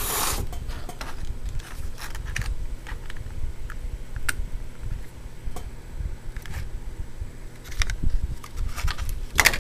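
Cardboard box and packing material being handled as a boxed die-cast scale model is pulled out: scattered rustles and light clicks, with a louder rustle at the start and another near the end, over a low rumble.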